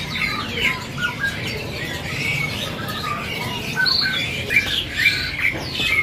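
Many caged songbirds chirping, whistling and calling over one another in short, overlapping notes, over a steady low background hum.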